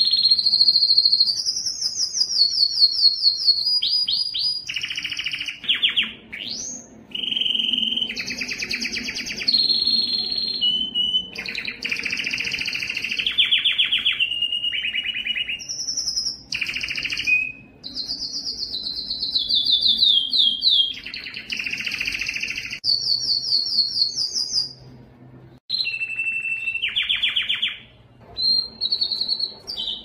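Canary singing: fast trills and rolls of rapidly repeated notes in phrases of one to three seconds, each on a different pitch, some gliding up or down, with short pauses between.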